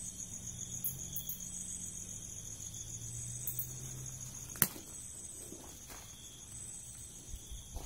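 Crickets trilling in a steady, high, pulsing tone, with a second insect call swelling and fading every couple of seconds, over a faint low hum. A single sharp click about four and a half seconds in.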